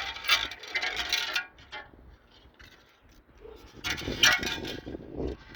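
Metal clinking and rattling in two spells: the first lasts about a second and a half, and the second comes about four seconds in.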